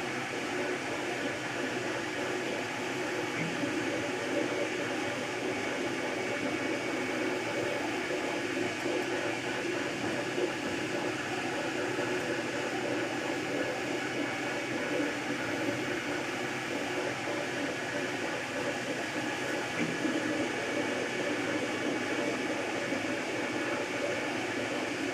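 MakerBot Replicator 2 3D printer running a print: a steady mechanical whir from its cooling fans and the stepper motors driving the print head, with a few faint high tones.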